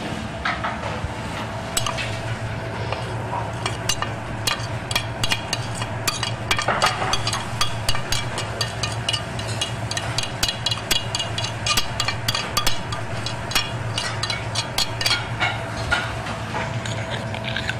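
Metal utensil scraping and clinking against a china plate and a glass bowl as the cooked shallot mixture is scraped into whipped cream and stirred in. The clicks and clinks come in a fast, irregular run that grows denser from about four seconds in, over a steady low hum.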